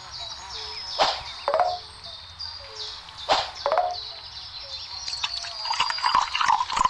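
Birds chirping in high short notes, with sharp water-drop plinks every second or so and a quicker cluster of them near the end.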